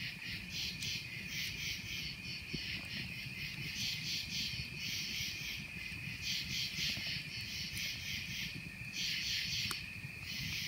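Night insects chirping in a steady, pulsing chorus. Underneath is the low rush of a wood campfire burning, with a few soft crackles.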